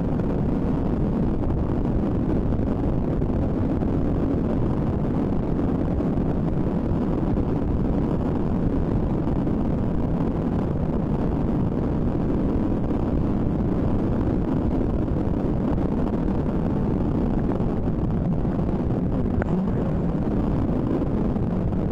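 Steady wind rush on the microphone with road and motor noise underneath, from riding a Honda ADV scooter at road speed.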